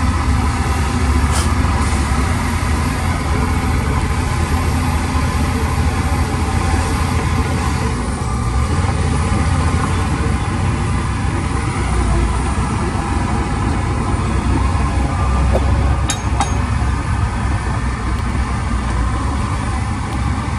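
Heavy diesel engine of earth-moving machinery running steadily with a deep, low rumble.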